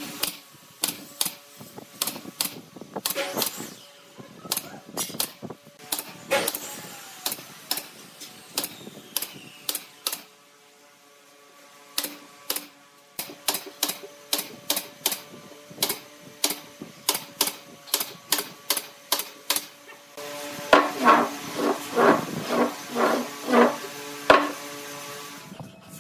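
Pneumatic brad nailer firing nails into pine chair slats: sharp shots in irregular runs, pausing for a couple of seconds about ten seconds in. Near the end, a run of louder, ringing knocks.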